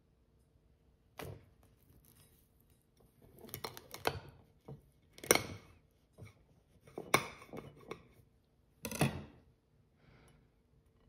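A chef's knife cracking and crunching through the hard white chocolate shell of an egg-shaped entremet. There are several short, sharp snaps spread through, the loudest a little after five seconds in.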